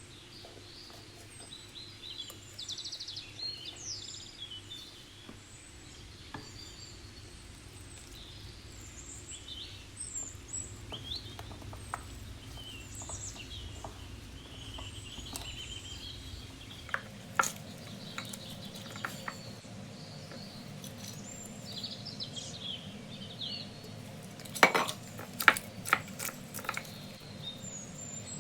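Kitchen utensils clinking against dishes: a few scattered clinks, then a quick cluster of sharp clinks near the end. Birds chirp throughout in the background.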